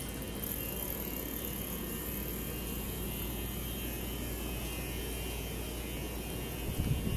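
Steady city-street background drone: a low, even hum with faint traffic rumble. A lower rumble swells up near the end.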